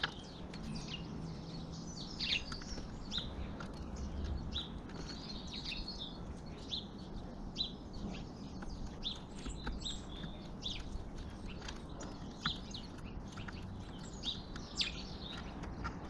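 Small songbirds chirping in the background: short, high chirps repeated about once or twice a second.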